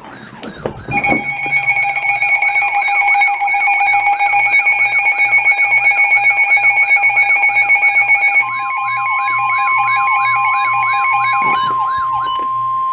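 Weather alert radios sounding their alarms: a fast up-and-down siren-like warble over a steady beeping alarm tone. About eight seconds in the beeping gives way to a single steady weather radio alert tone, the signal that a new severe thunderstorm warning is about to be read.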